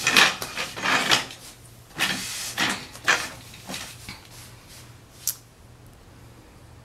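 Handling noise from a hand-held phone being moved in front of the camera: a run of short scrapes and bumps over the first four seconds, then a single sharp click a little after five seconds.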